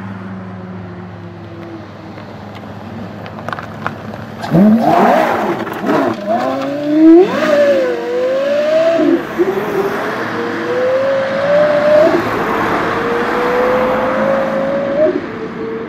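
Porsche Carrera GT's 5.7-litre V10 engine, first running steadily at low revs. About four seconds in it breaks into hard, loud revving, its pitch swinging up and down, then pulls hard through the gears, the note climbing and dropping back at each upshift.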